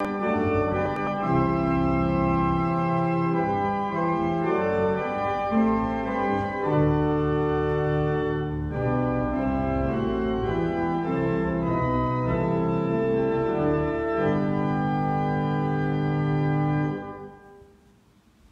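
Organ playing slow, sustained chords, with the final chord fading away near the end.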